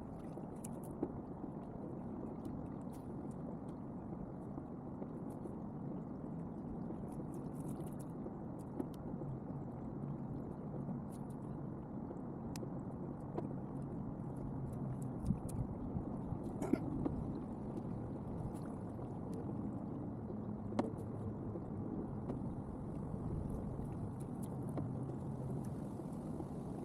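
Steady wind on the microphone and water against a kayak's hull while on the water, with scattered faint clicks.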